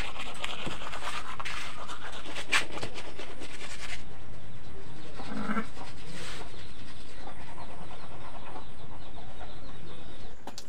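Toothbrush scrubbing against teeth, with scratchy brushing strokes over a steady background hiss.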